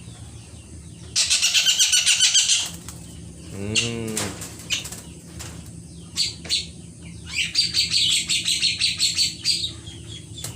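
A caged kingfisher making two bursts of rapid, high-pitched rattling, about ten pulses a second. The first comes about a second in and the second near the end, with a few sharp knocks between.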